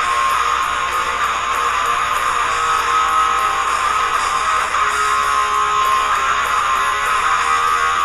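Hard rock band recording with electric guitars strumming steadily, loud and unbroken.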